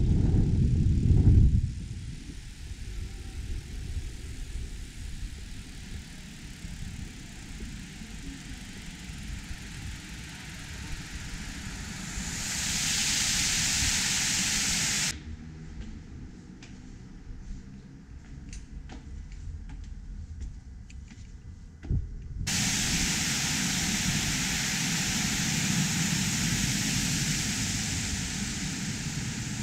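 Steady hiss of water spilling over the edge of a fountain basin for a few seconds in the middle, over a low rumbling background noise that has a loud burst at the start. A similar steady hiss starts abruptly near the end.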